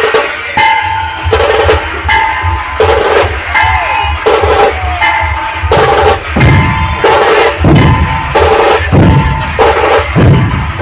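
Loud dance music with drums and heavy bass played over a DJ sound system. A short high note repeats about every three-quarters of a second.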